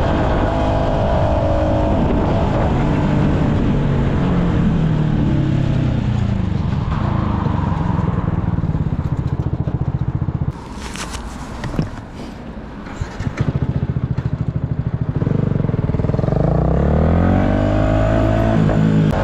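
Yamaha MT-125's single-cylinder four-stroke engine: revs fall steadily over the first half as the bike slows, drop to a quieter stretch with a few clicks around the middle, then climb again near the end as it accelerates.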